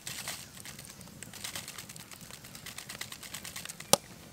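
Plastic zip-lock bag of flour crinkling and rustling as it is held open and handled, with a single sharp click near the end.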